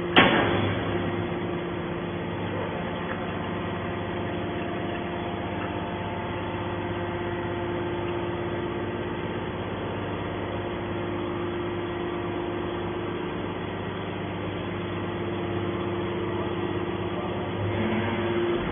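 Hydraulic scrap aluminium baler running with a steady machine hum, with one sharp knock just after the start.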